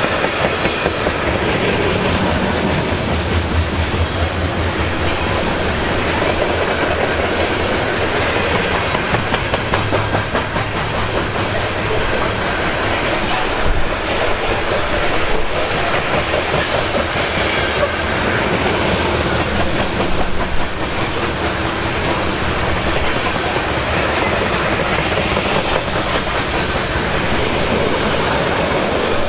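Coal gondola cars of a BNSF coal train rolling past, their steel wheels making a steady rumble on the rails. A few louder knocks come around the middle.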